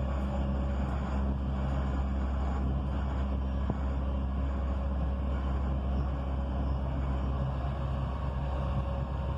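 Dubai Metro train running along its track, heard from inside the cabin: a steady low rumble with a faint hum.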